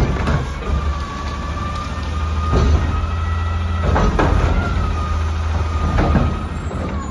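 Front-loader garbage truck running while its Curotto Can arm lifts a trash cart and tips it into the hopper, with a steady wavering whine over the engine hum. Several clanks and knocks come at intervals as the cart and arm move.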